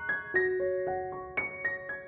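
Background piano music: a slow melody of single notes, each struck and left to ring and fade, about four notes a second.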